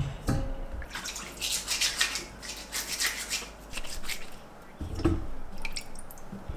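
Kitchen food preparation: a sharp knock, then a run of short scraping strokes as food is cut or spread, and a low thump about five seconds in.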